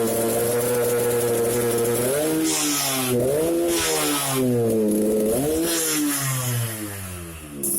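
Yamaha RX-King's single-cylinder two-stroke engine with a rich-running ('basah') tune for the growling 'ngorok' exhaust note. It runs steadily, then is revved up and down several times, and the revs fall away near the end.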